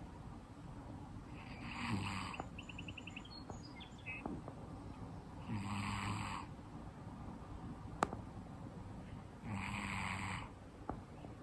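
A calico domestic shorthair cat snoring in her sleep, three snores about four seconds apart, each just under a second long. There is a single sharp click about eight seconds in.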